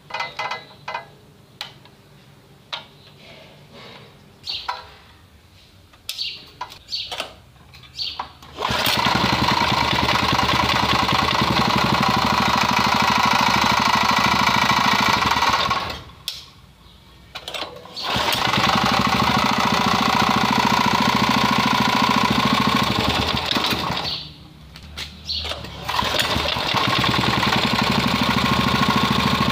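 Clicks and knocks of parts being fitted, then the small single-cylinder petrol engine of a portable water pump starts about a third of the way in and runs steadily, after repair of its failure to start. Its sound falls away abruptly twice for a second or two and comes back.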